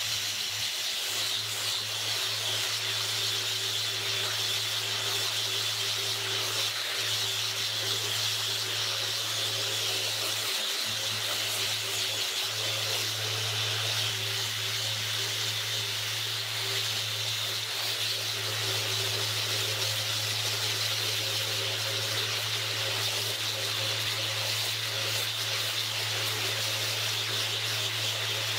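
Handheld orbital sander with coarse sandpaper running steadily against the edge of a dense ipe hardwood hoop, rounding it toward final shape: a constant hiss over a steady low motor hum.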